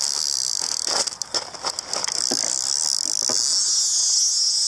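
A carp reel's free-spool clicker ratcheting fast and continuously as a hooked carp takes line off the spool: a run, the rod going off. A few knocks can be heard as the rod is handled.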